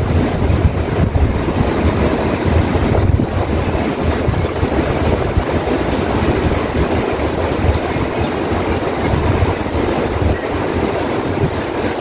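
Steady rushing noise: wind buffeting the microphone over water flowing in a shallow fountain basin.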